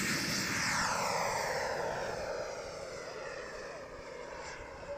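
Behotec 180 model jet turbine powering a SebArt Avanti S RC jet on its takeoff and climb-out: a high whine over a rushing exhaust hiss that falls in pitch and fades as the jet passes and flies away.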